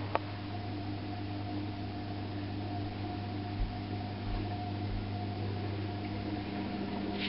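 Steady electrical hum over a faint hiss, with a single sharp click just after the start.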